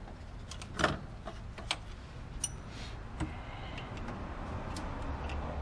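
Several sharp clicks and taps as a brake master cylinder and its metal line fittings are handled by hand, with one short metallic clink a little before halfway. The loudest click comes just under a second in, over a low steady hum.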